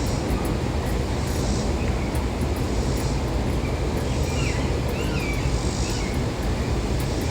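Steady low outdoor background rumble and hiss, with a few faint, short, wavering bird calls a little past the middle.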